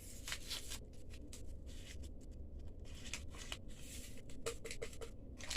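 Vanilla being added to the cake mixture: faint, irregular rustling and light clicks from handling the vanilla and the bowl.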